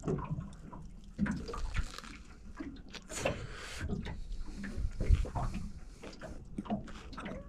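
A man chewing a big mouthful of flathead fish taco close to the microphone: irregular wet mouth clicks and squelches, with a brief hiss about three seconds in.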